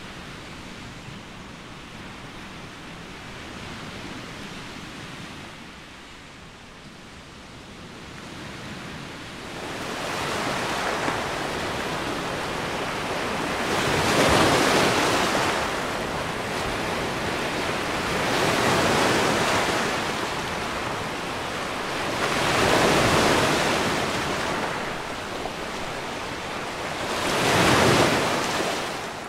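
Small Baltic Sea waves breaking and washing up a sand-and-pebble beach. A softer steady rushing gives way to surges that swell and fall back about every four to five seconds, the loudest near the end.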